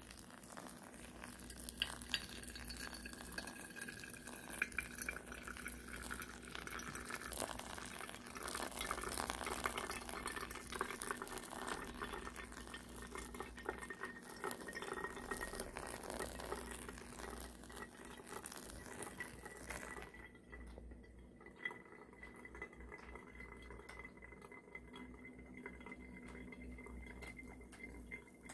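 A thin stream of water poured onto coffee grounds in a paper pour-over filter, a soft steady trickle and splash. About two-thirds of the way through the pouring sound drops away, leaving a quieter sound with a faint steady high whine.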